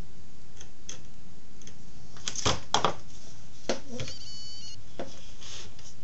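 Handling noise at a workbench: a few light knocks and taps as a wooden yardstick and a plastic wall panel are moved about, loudest a little before the middle, with a brief high squeak shortly after.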